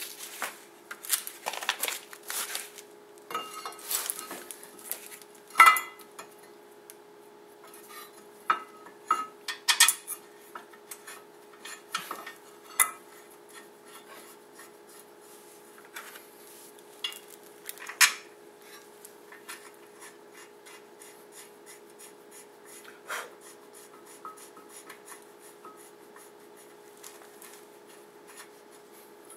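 Irregular metal clinks, knocks and scrapes as a steel brake caliper mounting bracket and its bolts are handled and fitted against the brake rotor and steering knuckle. The clinks come thick in the first half and grow sparse later, over a steady faint hum.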